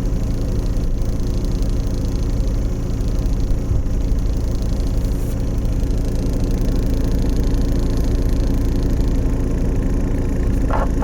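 Toyota 86 (ZN6) automatic idling in Drive while stopped: a steady low hum and buzz from the left rear. The cause is the thin one-way rubber flap in the body vent duct resonating with the idle vibration. A brief higher-pitched sound comes near the end.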